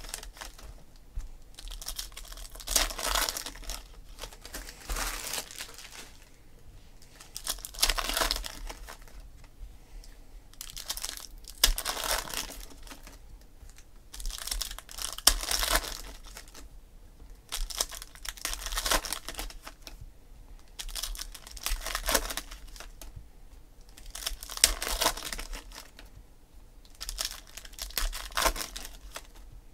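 Foil trading-card pack wrappers crinkling and tearing as packs of 2016 Donruss Optic football cards are opened and handled, in short bursts every second or two.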